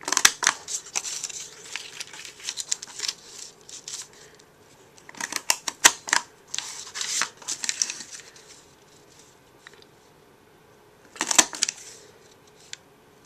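Scallop border punch snapping through a strip of designer paper: sharp clicks in three bouts, mixed with the rustle of the paper being slid along to line up the next scallop.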